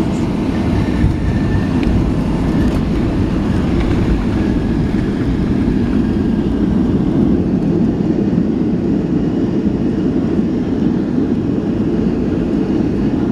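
Steady low rumble inside the cabin of a Boeing 757 rolling out along the runway after landing, with engine and airflow noise heard through the fuselage.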